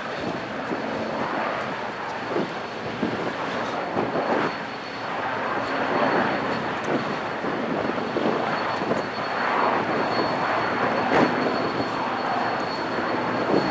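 Helicopter running at a distance overhead: a steady rushing noise with a faint, thin high whine.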